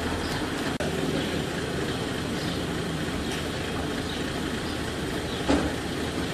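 Military jeep engine idling steadily, with one short thump about five seconds in.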